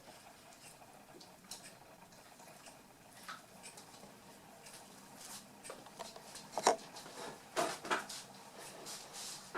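Eight-week-old toy poodle puppies playing: light pattering and scuffling, with a few louder knocks about two-thirds of the way through.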